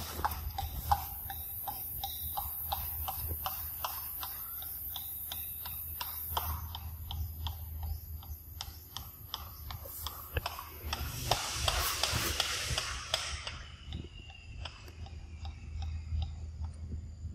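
Irregular light clicks and taps, with a brief rustle about eleven seconds in.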